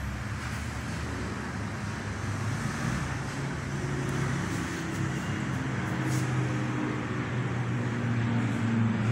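A steady low mechanical drone with a faint hum, growing slightly louder toward the end.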